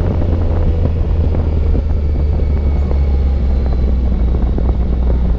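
Motorcycle riding at a steady speed: a continuous, even low rumble of engine and road noise.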